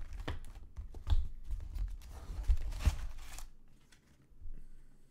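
Cardboard box of baseball card packs being opened by hand, its packs pulled out and set down on the table: rustling cardboard and pack wrappers with several knocks and dull thuds. The noise dies down in the last second and a half.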